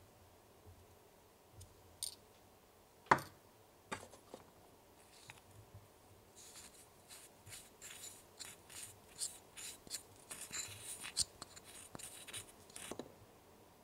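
A tiny plastic spatula scraping and stirring inside a small clear bowl, mixing soft toy dough with starch: quick, repeated scratchy strokes through the second half, after a single sharp tap about three seconds in.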